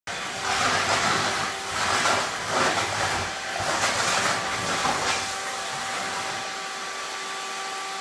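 Red canister vacuum cleaner running with a steady motor whine and rushing suction, swelling in repeated louder surges for about the first five seconds, then settling to a steadier, quieter run.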